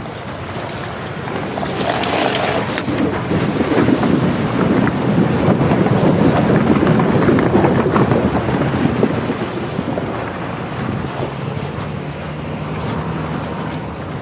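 A bus's wheels churning and splashing through a shallow, muddy stream crossing, with wind buffeting a microphone held out of the bus window. The splashing swells through the middle and eases near the end.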